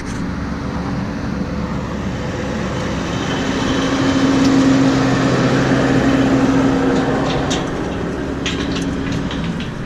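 A vehicle engine running steadily, growing louder in the middle and easing off again, with a few short clicks near the end.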